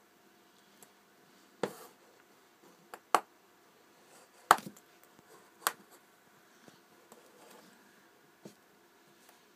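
Small screwdriver and fingers working on a mobile phone's plastic casing: four sharp clicks about a second and a half apart, with fainter ticks and taps between.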